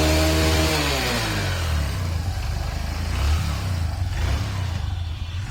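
Honda Livo motorcycle's single-cylinder engine coming down from a rev, its pitch falling over the first second or so, then running at low revs.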